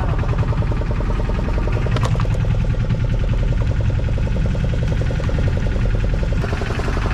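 A fishing boat's engine running steadily with an even low drone, and a single brief knock about two seconds in.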